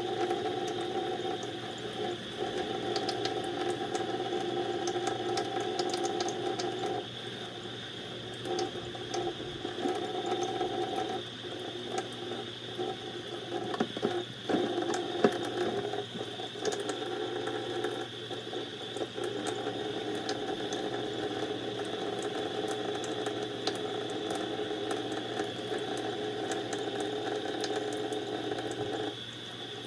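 A small motor whirs steadily with a pitched hum, with occasional light clicks and knocks over it, and cuts off shortly before the end.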